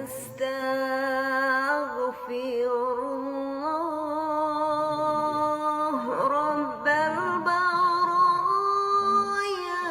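A single voice chanting an Islamic prayer in long held notes, with wavering, ornamented pitch and a brief break a little past halfway.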